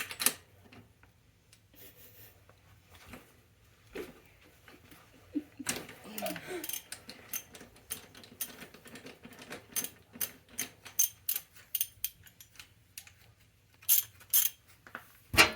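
Hand tools and metal parts clicking and clinking as a screw is fitted on a bicycle: irregular sharp clicks, sparse at first and coming thick and fast from about six seconds in, with a louder knock near the end.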